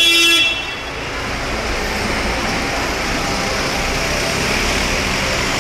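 A vehicle horn sounding, cutting off about half a second in, then steady city street traffic noise.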